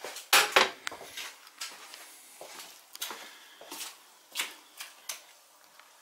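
Irregular knocks and clinks of hard kitchen items being handled, the two loudest close together about half a second in, then fainter scattered taps.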